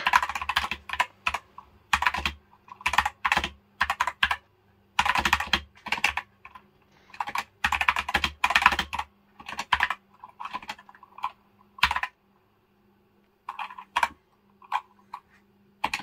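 Typing on a Corsair K100 keyboard with OPX linear optical-mechanical switches: quick runs of key clacks broken by short pauses. The typing stops for about a second and a half past the middle, then a few scattered keystrokes follow.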